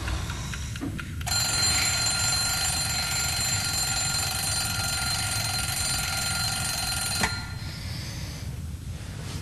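Bedside alarm clock ringing steadily for about six seconds, then cut off suddenly with a click as it is switched off.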